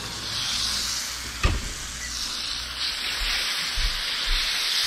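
Tomatillos sizzling steadily in a hot pan as they brown and char, with one sharp knock about a second and a half in.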